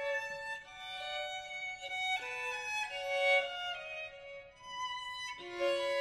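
Background music: a violin playing a melody of held notes that change every half second to a second.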